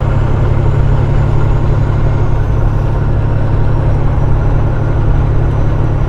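Semi truck's diesel engine droning steadily at highway cruising speed, with road and wind noise.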